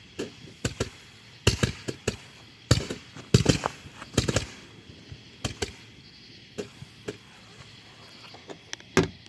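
Consumer fireworks going off in an irregular series of sharp bangs and cracks, densest in the first half, then thinning to scattered pops near the end.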